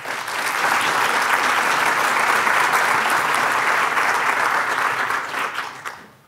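Audience applauding, a dense patter of many hands clapping that swells quickly, holds steady and dies away near the end.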